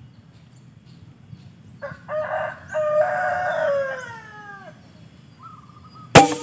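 A rooster crows once, a long call that falls in pitch at the end. Near the end comes a single sharp air rifle shot, the loudest sound.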